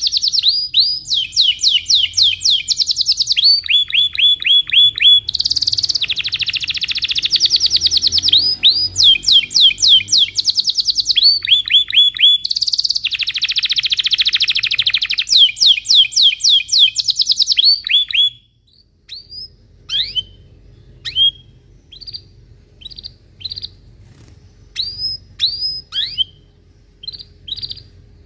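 Domestic canary singing a rolling song of fast trills and rapidly repeated down-slurred notes, switching phrases every second or two. About eighteen seconds in the song stops abruptly, leaving only single short chirps roughly once a second.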